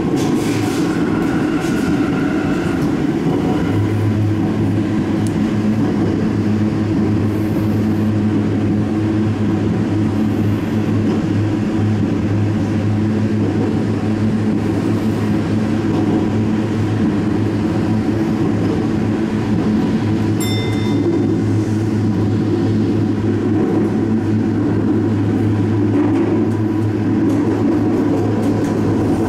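Sendai Subway Tozai Line 2000 series linear-motor train running at speed between stations: a steady running drone with a low hum. A higher motor whine fades out in the first few seconds, and a short high-pitched tone sounds about twenty seconds in.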